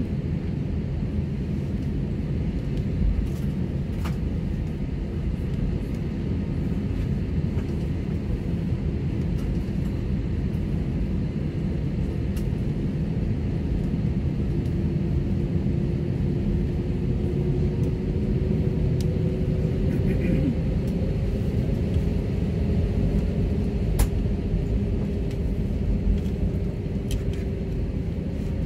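Jet airliner cabin noise while taxiing: the engines' steady low rumble, with an engine tone that rises slightly about halfway through.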